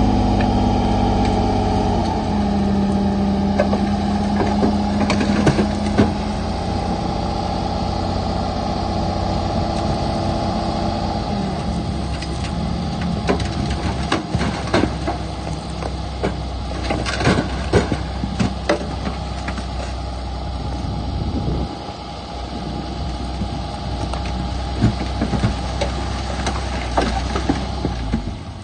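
Heavy diesel earthmoving machinery running, its engine holding a steady note for the first dozen seconds. After that the sound turns rougher, with scattered metallic clanks and knocks.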